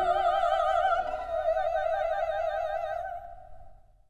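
Operatic singing voice holding one long high note with a wide vibrato, fading away about three seconds in.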